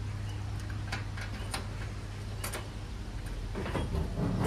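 A few faint, sharp clicks of light handling over a steady low hum, with a scraping noise building near the end.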